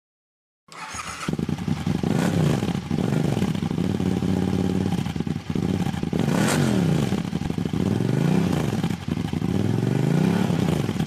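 Motorcycle engine running, its pitch rising and falling again and again as it speeds up and slows down; the sound cuts in abruptly just under a second in.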